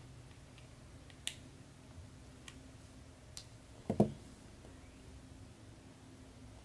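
Hands handling small metal parts and pliers on a table: a few light clicks, then a louder dull knock about four seconds in, over a faint steady hum.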